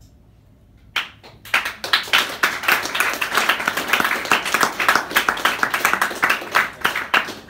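A group of people applauding: a first clap about a second in, then dense, steady clapping that dies away near the end.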